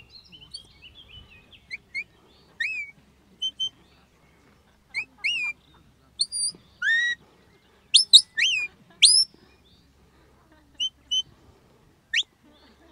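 Shepherd's whistle blown in a series of sharp notes, some rising and some rising then falling, the loudest bunched around the middle: whistled commands directing a working sheepdog.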